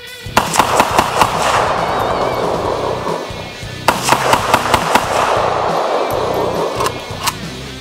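AK-47 with a slant muzzle brake firing two quick strings of about six to seven rounds each, every string followed by a long rolling echo across the range, then two single shots near the end.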